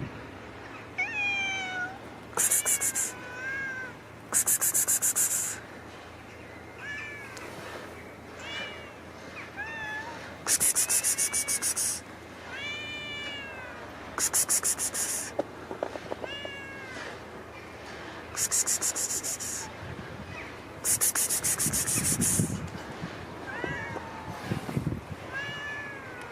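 Cat meowing over and over, drawn-out meows that rise and fall in pitch. Between the meows come louder, very high-pitched, rapidly pulsing buzzes of one to two seconds each, six in all.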